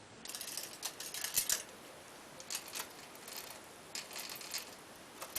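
Bicycle chain links clinking and rattling as the chain is handled, in three short bursts of small metallic clicks.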